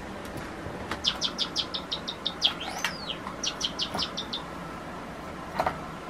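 Java sparrow singing its song: a quick run of high, evenly spaced piping notes, about seven a second, broken in the middle by a note that rises and falls, then a second run of notes.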